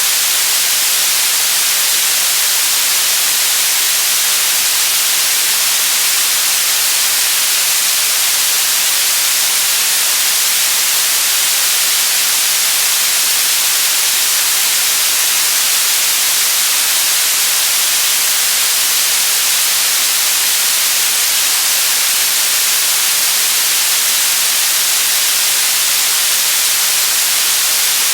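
Steady, loud static hiss, even throughout and weighted toward the high end, like an untuned radio or TV.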